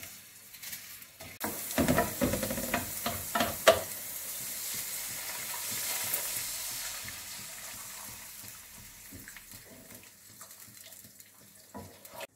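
Tomato passata poured from a bottle into hot olive oil and sliced onion in a frying pan: a gentle frying hiss turns into a sudden loud sizzle about a second and a half in, with a few sharp knocks as it pours. The sizzle then dies down slowly as the sauce is stirred with a wooden spoon.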